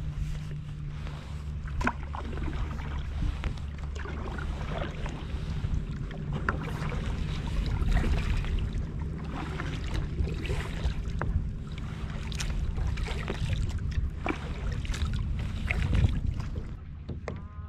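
Water splashing and lapping against the plastic hull of a moving kayak, with irregular small splashes and drips, over a steady low rumble of wind on the microphone.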